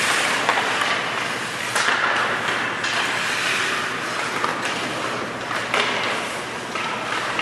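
Ice hockey play on a rink: a steady hiss of skates on the ice, broken by a few sharp knocks from sticks and puck, about three in all.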